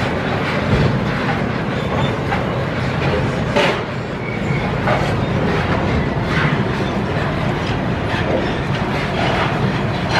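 Freight train of double-deck car-carrier wagons rolling past: a steady rumble of steel wheels on the rails, with irregular sharp clacks every second or two.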